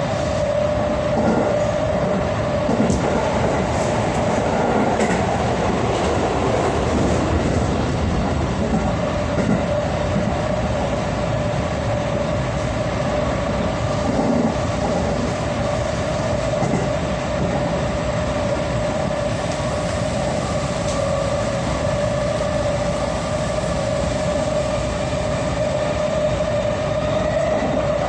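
JR West 223 series electric train running steadily at speed, heard from inside the leading car: a continuous rumble of the wheels on the track with a steady whine over it.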